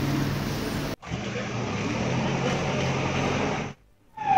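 A vehicle engine running steadily under outdoor noise with faint background voices; the sound drops out briefly about a second in and again near the end.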